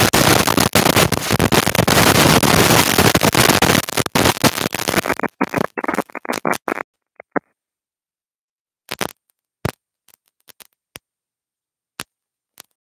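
Plastic wrapping on a sealed hockey card box crinkling loudly as the box is handled. The crackling is dense for about five seconds, thins into scattered crackles and stops about seven seconds in, and a few single clicks follow later.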